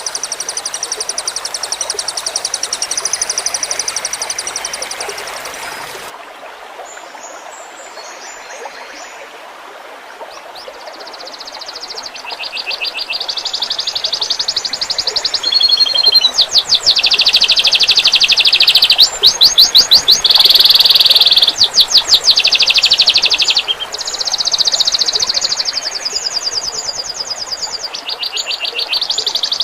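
Songbird singing fast, high, rapid-fire trills and strings of quickly repeated notes, the bursts known as 'tembakan', over a faint trickle of water. The song stops about six seconds in and comes back after a few seconds, growing louder.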